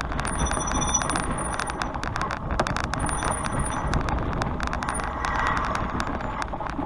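Bicycle ridden along a rough woodland track: steady tyre and riding rumble with frequent small clicks and rattles from the bike over the uneven ground.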